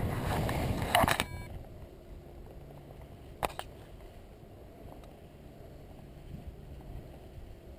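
Wind rushing over the microphone of a paraglider's camera as the pilot glides just above the grass, cutting off suddenly about a second in. After that only faint, even outdoor background, with one sharp click about three and a half seconds in.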